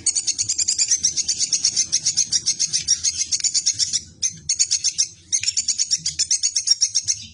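Tupai (squirrel) chattering call: long runs of rapid, sharp high chips, about ten a second, breaking off briefly twice a little past the middle.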